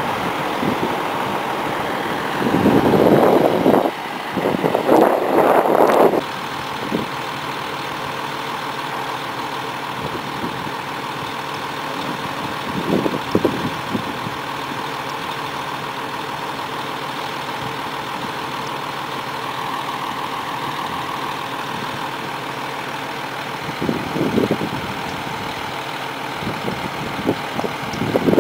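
Heavy diesel truck engine idling steadily, with a few louder bursts of noise in the first six seconds.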